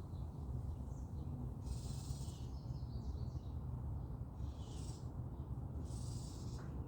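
Garden birds calling faintly, a few short chirps and three brief high hissy calls about two, four and a half and six seconds in, over a steady low rumble.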